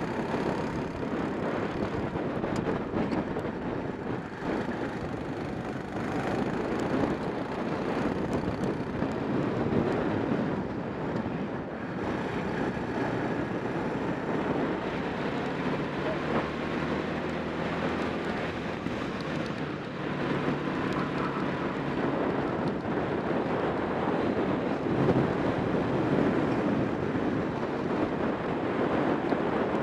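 Racing kart heard from onboard at speed: its engine running hard under heavy wind noise on the microphone.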